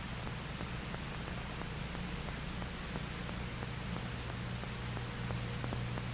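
Steady hiss and low hum of an old film soundtrack, with faint scattered ticks.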